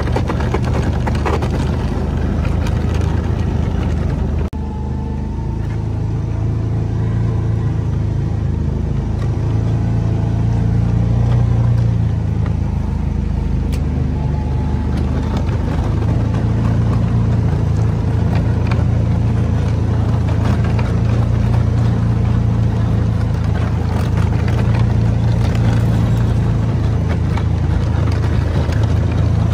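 Kawasaki Mule utility vehicle's engine running steadily under load while pushing snow with its front plow blade. The level drops suddenly about four and a half seconds in, then builds back up over the next few seconds.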